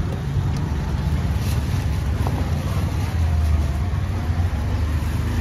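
Steady low rumble of motor vehicle engines, with a few faint clicks.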